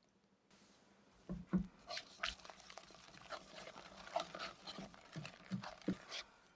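Wire balloon whisk beating a thick butter, sugar and egg mixture for almond cream in a glass bowl: irregular wet slaps and clicks of the wire against the glass, starting about half a second in, with a few louder knocks.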